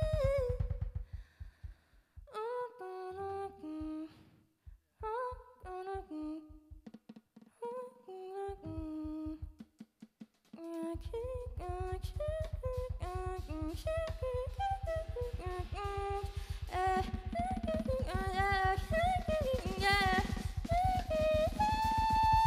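Live jazz combo with a female vocalist. She sings short, halting melodic phrases with gaps and little accompaniment. About eleven seconds in the drum kit comes back in under her, and near the end she moves onto a long held high note.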